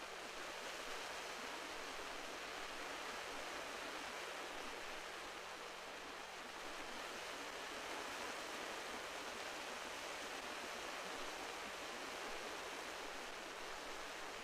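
Steady wash of sea surf on the shore, an even rushing noise with no distinct breaks.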